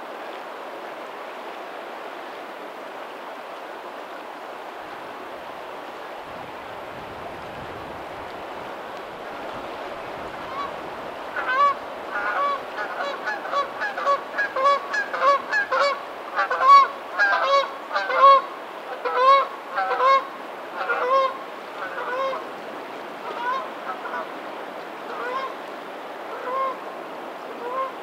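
A flock of geese honking: many short calls overlapping from about ten seconds in, thinning to scattered honks near the end. Under them runs a steady wash of lagoon water and distant waves.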